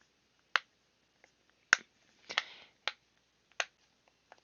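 Silicone pop-it fidget toy bubbles being pressed one at a time, giving sharp pops at irregular intervals: about five loud ones, with fainter ones in between.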